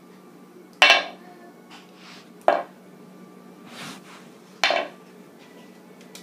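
Small steel spinning top clinking against a wooden board: three sharp metallic knocks with a short ring, about two seconds apart, over a steady low hum.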